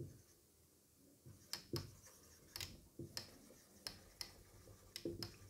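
Marker pen writing on a whiteboard: a faint, irregular series of short taps and strokes as the words are written out.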